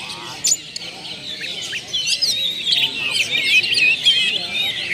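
Oriental magpie-robin (kacer) singing a fast, varied run of chirps, trills and whistles, its repertoire of learned phrases; the song is sparser at first and grows busier after about two seconds.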